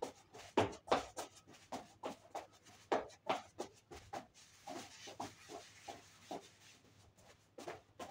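Sneakers tapping, stepping and scuffing on the floor in quick, irregular footwork dance steps, about three sharp taps a second, with a stretch of sliding scuffs about halfway through.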